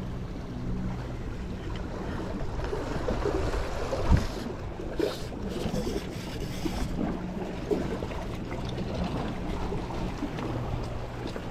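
Wind buffeting the microphone over lapping sea water at the shore, with an on-and-off low hum and a single thump about four seconds in.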